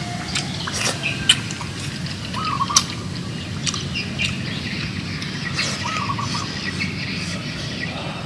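Wild birds chirping, with a short warbled call twice, over a steady low background hum.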